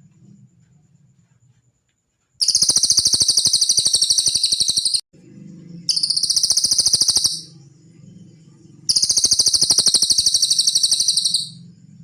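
Cililin songbird singing three loud, very fast high trills, the first and last about two and a half seconds long and the middle one shorter, with a faint low hum underneath.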